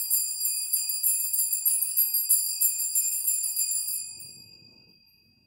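Altar bells (sanctus bells) shaken in a rapid, continuous jingle, rung at the elevation of the host during the consecration. About four seconds in the shaking stops and the bells ring on, fading away.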